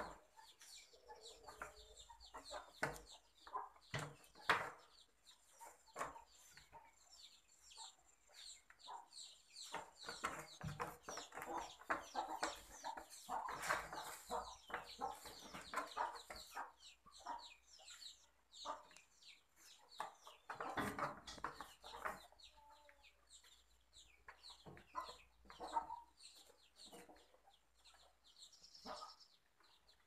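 Poultry clucking in short repeated calls, with scattered clicks and rustles in between.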